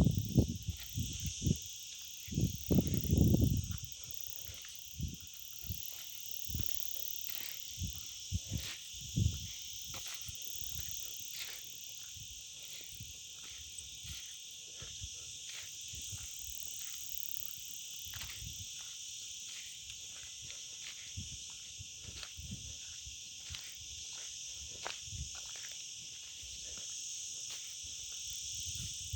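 Steady high-pitched drone of an insect chorus, with many short clicks and knocks over it and a few louder low thumps or rustles in the first few seconds.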